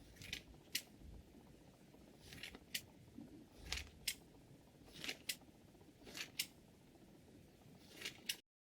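Scissors worked six times, each stroke a short sliding rasp of the blades ending in a sharp click as they close.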